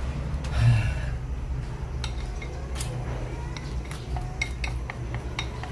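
Chopsticks stirring flour batter in a ceramic bowl, clinking against the bowl in a quick irregular run of light clinks, some ringing briefly.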